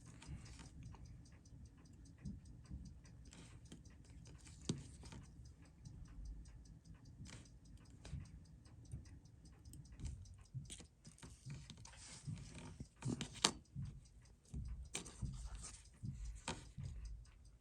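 Faint, steady ticking with scattered small clicks and taps of metal watchmaking tools on a watch movement, a few of them louder about halfway through and near the end.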